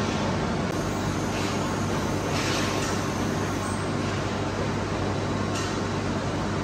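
Workshop machinery running steadily with a constant low hum, and a brief hissing swell about every three seconds.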